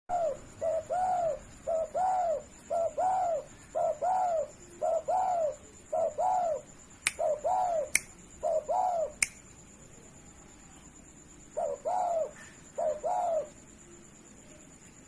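Spotted dove (derkuku) cooing: a long run of short, arched coos, often in quick pairs, that breaks off about two-thirds of the way through and resumes for a few more coos near the end. Three sharp clicks fall among the coos, over a faint steady high-pitched tone.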